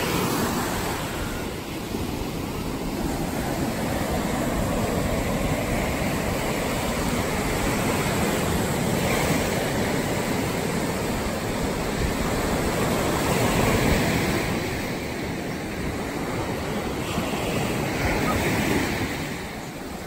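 Ocean surf breaking and washing up onto a sandy beach: a continuous rush of waves that swells and eases, louder about two-thirds of the way through.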